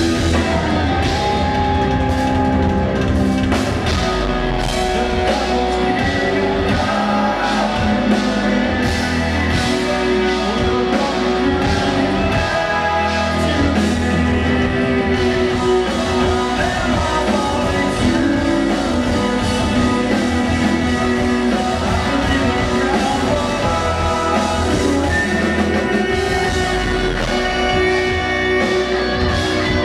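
Progressive metal band playing live: electric guitars and bass, keyboards and a drum kit, with a singer's voice at times. It is heard from the audience, with the echo of a large hall.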